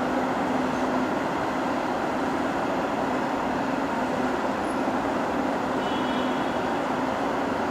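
Freight train running through a station without stopping: a steady, even rolling noise of wagons on the rails with a faint steady hum.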